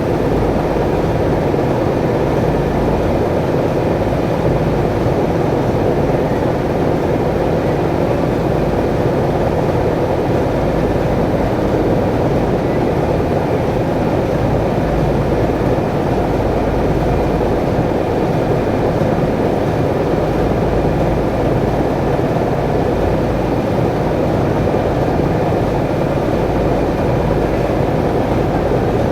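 Ship's engine and gearbox running steadily in the engine room: a loud, even drone with no change in speed.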